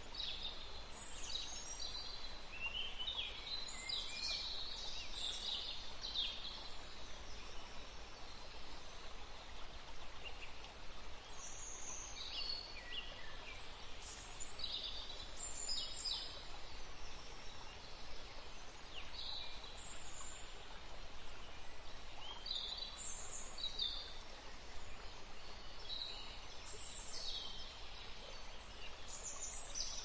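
Songbirds singing in short, high chirping phrases every second or two over a steady background hiss, with a pause of a few seconds about a third of the way in.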